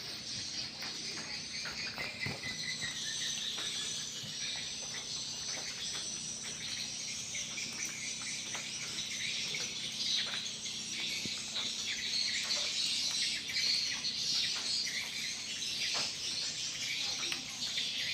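A crowd of swiftlets twittering continuously in a dense, high chirping chorus, with scattered sharp clicks throughout.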